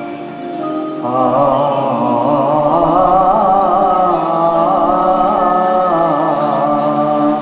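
Male singer performing a Malayalam Mappila song into a microphone, a melismatic melody with constantly wavering, ornamented pitch, over instrumental accompaniment; the voice comes in about a second in.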